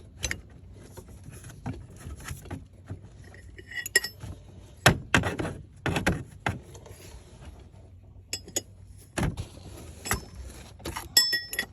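Metal hand tools (wrench, ratchet and sockets) clinking and knocking against metal in irregular sharp strikes, several with a short ringing clink, while working on a stubborn bolt.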